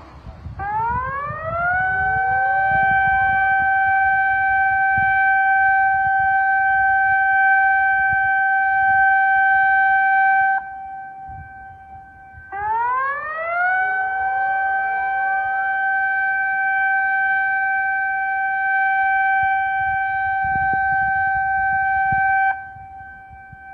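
Civil-defence warning siren sounding two long wails. Each rises in pitch for about a second, holds one steady tone for about nine seconds, then cuts off abruptly, with a short pause between the two.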